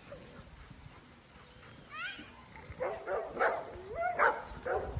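Golden retriever puppies yipping and whining: a few short rising yelps about two seconds in, then louder, irregular high cries as they swarm.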